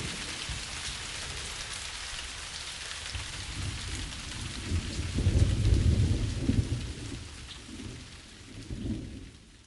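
Steady rain hissing, with a low rumble of thunder swelling about five seconds in and a smaller rumble near the end, the whole fading out at the close.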